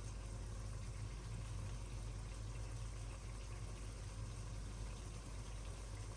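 Curry cooking in a pot on the hob: a steady soft hiss over a low hum.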